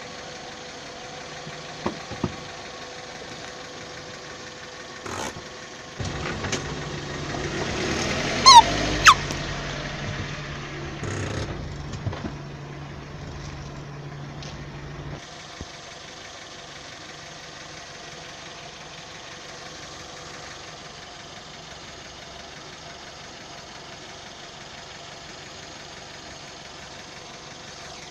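Car engine running at idle, close to the ground, with a few short clicks. Midway there is a louder passage with two sharp, high squeaks that glide in pitch, then the steady idle resumes.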